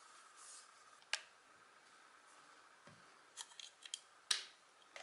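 Sharp plastic clicks and light taps from handling a white plastic LED desk lamp and its USB charger cable: one click about a second in, then a quick run of small clicks and a sharper click near the end.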